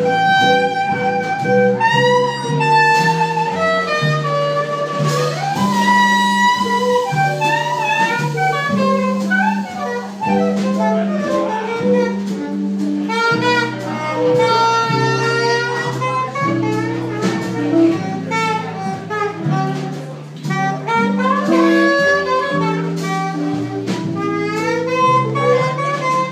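Trad jazz band playing an instrumental passage: a saxophone carries the lead melody over a walking upright bass line, strummed guitar and drums.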